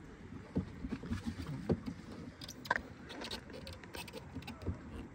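Faint, scattered clicks and knocks, a few of them sharper a little over halfway through.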